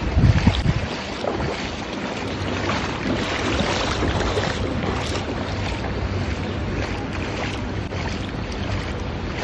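Steady rush of wind on the phone microphone and water in a flooded street, with a louder buffet of wind about half a second in.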